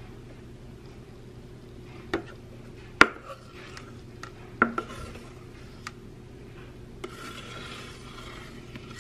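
Banana bread batter being poured from a stainless steel mixing bowl into a baking pan. The metal bowl gives a few sharp knocks and clinks, the loudest about three seconds in. Near the end there is a soft scraping for a second or so.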